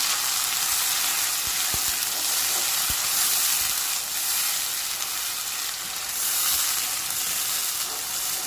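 Onions with ginger-garlic paste and a splash of water sizzling in hot oil in a pan as they brown, a steady frying hiss with a few soft knocks while they are stirred.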